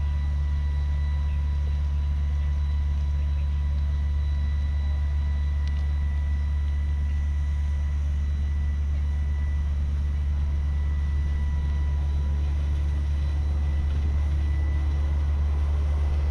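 A fire engine running at the pump to feed the hose lines: a steady, unchanging low diesel drone.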